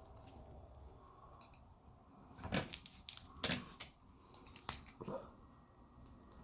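Small hand tools snipping and clicking against a tiny charger circuit board: a handful of sharp snips, the loudest just past the middle, over a faint background.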